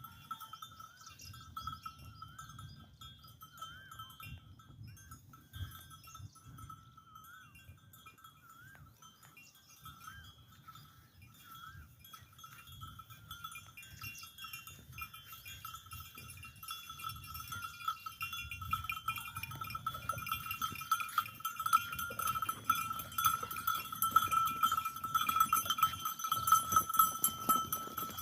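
Bells on grazing goats clinking and ringing, ringing tones held over a scatter of clanks, growing louder and busier after the first two-thirds.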